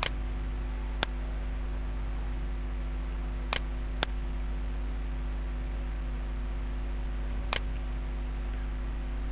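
Computer mouse clicking about five times as sliders are grabbed and released, over a steady electrical hum.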